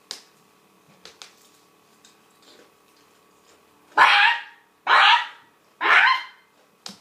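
A person's voice imitating a chicken: three loud, short squawking calls about a second apart, starting about four seconds in. Before them there are only a few faint clicks.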